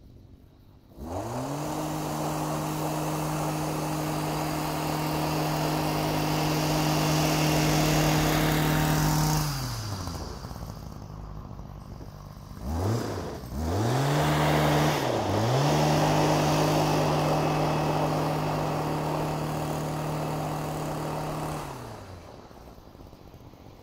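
STIHL MM-55 yard machine driving a power-broom attachment that sweeps light snow. The engine is throttled up from idle about a second in and held at a steady high speed, drops back near ten seconds, is blipped twice, then held high again before it falls back to idle about two seconds before the end.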